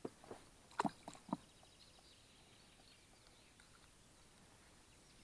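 A handful of sharp clicks and knocks in the first second and a half as a spinning reel and lure are handled, then faint birdsong of short high chirps.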